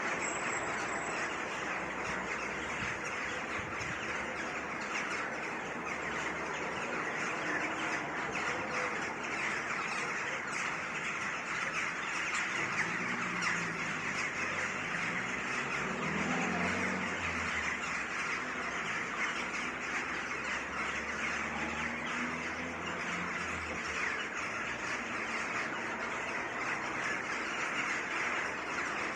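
A flock of birds in a tree calling and chirping all at once, a dense, steady chorus of overlapping calls.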